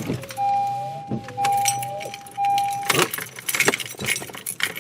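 Car keys jangling at the ignition of a 2015 Honda Civic, with three long electronic beeps at one steady pitch back to back over the first three seconds, then clicks and rattling.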